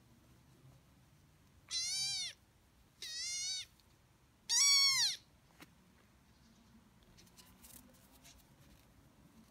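Young kitten meowing three times, short high mews that rise and fall in pitch, each about half a second long, the third the loudest.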